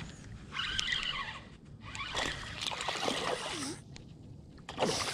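Water splashing and sloshing in several irregular bursts as a small hooked largemouth bass is reeled up to the kayak, with the spinning reel winding close by.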